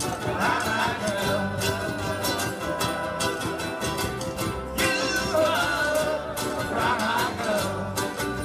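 A large group of ukuleles strumming together in a steady rhythm, with many voices singing along.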